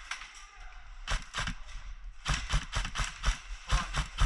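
Airsoft guns firing: a string of about a dozen sharp cracks, irregularly spaced, some in quick pairs.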